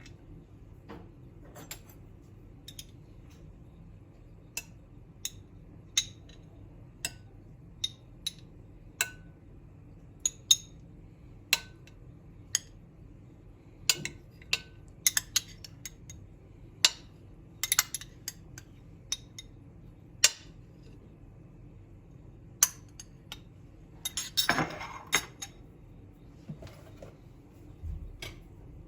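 Kitchen dishes and cutlery being handled: a string of separate sharp clinks and knocks, some ringing briefly, with a denser rattling scrape near the end.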